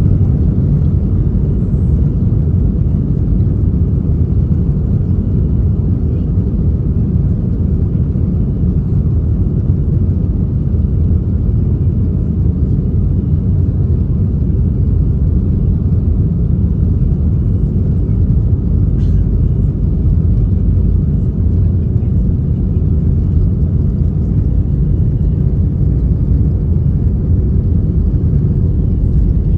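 Cabin noise inside an Airbus A320-214 jetliner: a loud, steady low rumble of its CFM56 jet engines and the airflow past the fuselage as the aircraft takes off.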